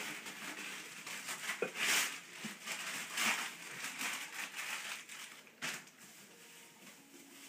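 Paper and cardboard packaging crinkling and rustling in irregular bursts as a present is unwrapped, growing quieter near the end.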